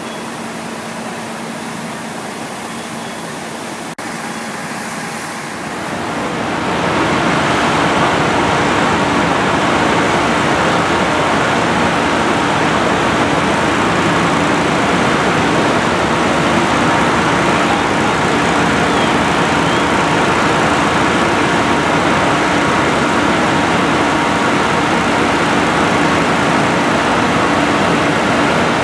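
Fire engine's diesel engine and pump running steadily at a working fire: a low steady hum under a rushing noise. It gets louder about six seconds in and then holds steady.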